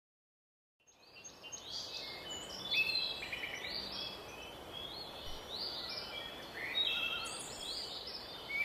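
About a second of silence, then forest ambience: many small birds chirping in short, quick calls over a steady hiss.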